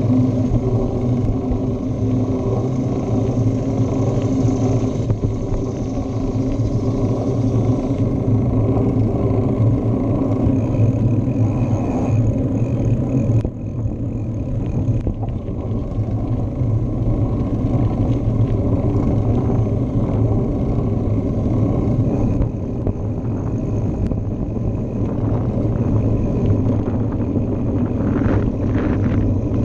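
Steady rumble of wind on a handlebar-mounted action camera, mixed with bicycle tyres rolling on asphalt while riding, with a brief dip in level near the middle.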